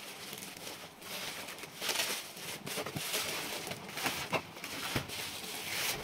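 A plastic courier mailer bag and bubble wrap crinkling and rustling in uneven spurts as a wrapped box is pulled out by hand, with a few small clicks.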